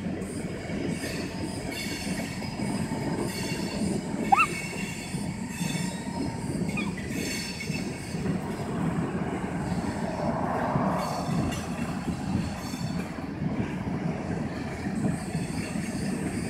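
CSX freight train of tank cars and covered hoppers rolling past: a steady rumble and clatter of steel wheels on the rails, with a brief high wheel squeal about four seconds in.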